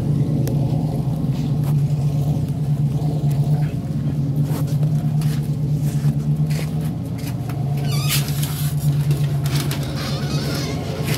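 Car engine idling steadily with a low, even hum, and a brief rustling noise about eight seconds in.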